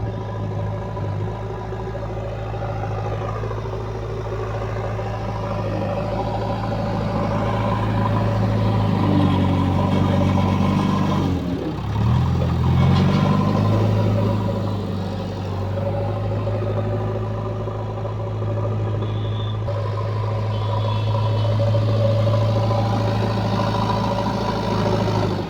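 Diesel engine of a JCB 3DX backhoe loader running steadily at working speed. Its pitch dips about twelve seconds in and climbs back.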